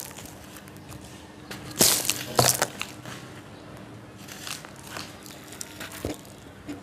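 Hands squeezing and crumbling molded domes of dry yellow sand: crunching, loudest in a cluster about two seconds in, with a few softer crunches later.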